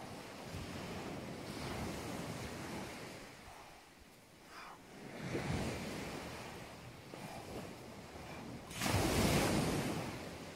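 Small sea waves washing up a pebble beach, rising and falling in swells, with the loudest wave breaking about nine seconds in.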